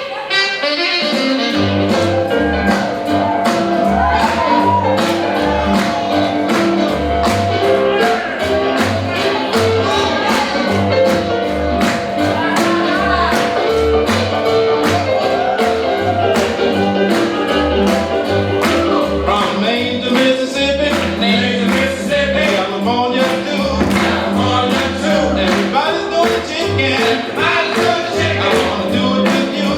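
Upbeat boogie-woogie style rock and roll song with a driving bass line, a steady beat and singing.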